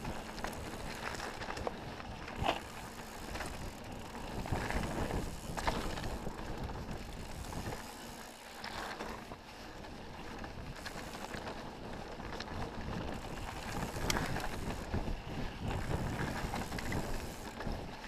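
Mountain bike ridden fast down a dirt singletrack: knobbly tyres rolling over dirt and stones, with the bike rattling and knocking over bumps.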